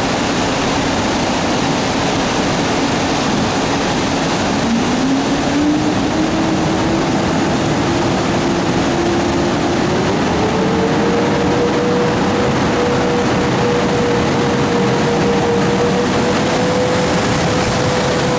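Electric train pulling away, its traction motors whining over the loud running noise of the train. The whine rises in pitch in two steps, about four and a half seconds in and again about ten seconds in, then holds steady.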